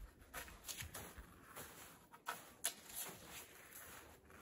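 Footsteps in light, dry snow: an irregular run of faint crunching steps, a few a second, with one sharper step about two-thirds of the way through.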